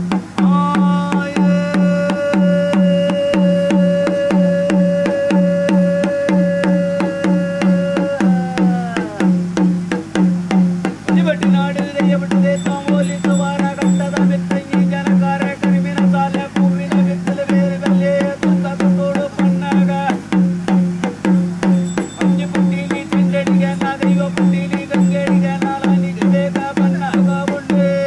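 Traditional ritual music: drums beat a steady rhythm while a wind instrument holds a long note that slides downward about eight seconds in, then plays a wavering melody over the drumming.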